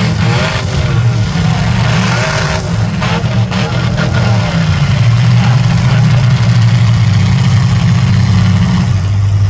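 Demolition derby cars' engines running loud, revving up and down as the cars push against each other, with a few sharp knocks of metal on metal around three seconds in.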